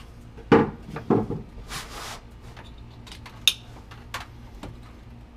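A Mitsubishi Lancer Evolution VI's dash trim and clock panel being handled: two knocks a little over half a second apart near the start, a brief scraping rustle, then a sharp click and a few lighter taps.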